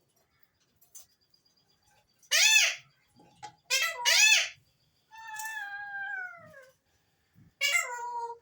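Alexandrine parakeet calling: a few loud, short arched calls, two of them close together, and one longer call that slides down in pitch, like a falling whistle or meow.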